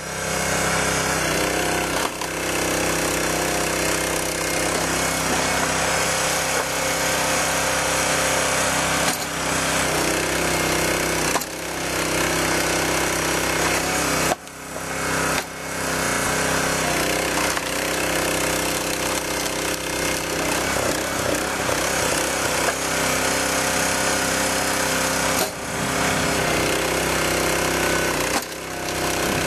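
Engine of a Split-Fire 3255 two-way log splitter running steadily at working speed while logs are split, the sound dropping briefly a few times.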